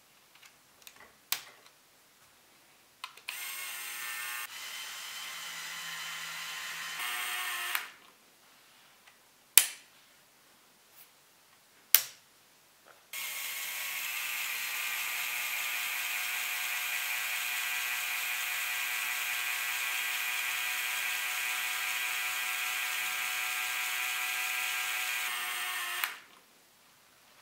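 A LEGO Technic crane's battery-powered 9V electric motor whirs steadily through its plastic gear train, once for about four seconds and then for about thirteen seconds. Between the runs come sharp clicks of the plastic gearbox levers and the motor switch being flipped.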